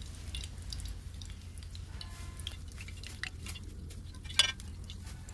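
Oil crackling in a miniature pan as a small raw-banana bajji fries: scattered light ticks and pops, with one sharper click about four seconds in.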